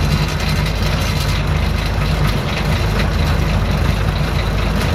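Small narrow-gauge diesel locomotive's engine running at a steady low drone, heard from on board as it travels slowly along the track.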